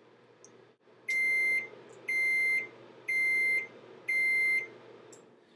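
Microwave oven's end-of-cycle beeper: four even, high beeps about a second apart, each about half a second long, signalling that cooking is done.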